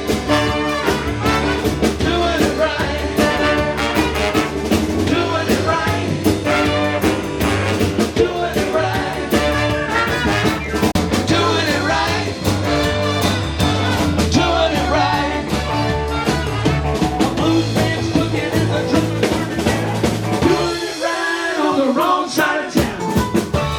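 A live horn band playing, with brass over a bass line and drums keeping a steady beat. The bass drops out for a couple of seconds near the end and then comes back in.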